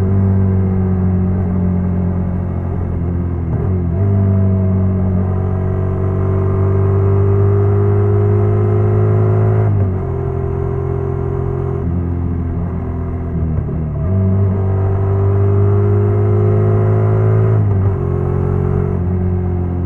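Honda NC750X's parallel-twin engine running under way, pulling steadily with its note dipping and recovering several times as the revs drop and pick up again.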